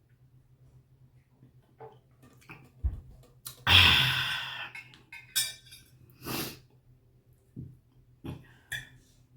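Close-up eating sounds: a loud breath about four seconds in, then shorter mouth noises and a few light clicks of cutlery on a dish.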